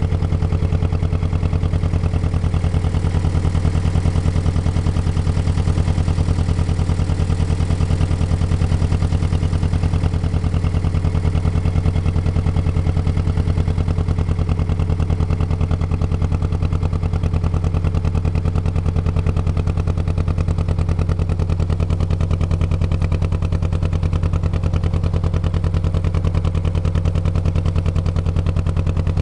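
Motor launch's engine running steadily, a constant low drone with rapid, even firing pulses that does not change in speed.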